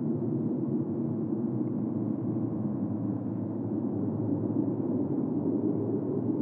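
A steady, low, muffled drone with no breaks or clicks.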